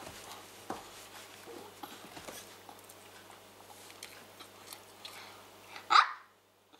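Cavalier King Charles Spaniel puppy's claws ticking on a parquet floor and soft mouthing noises as it clambers onto a lap, with one short, loud sound about six seconds in.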